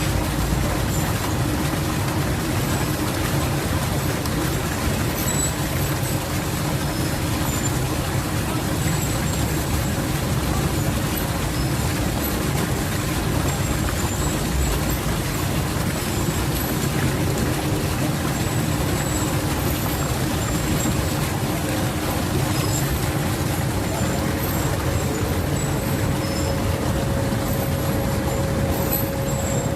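Waterfall rushing steadily, a constant roar of falling water.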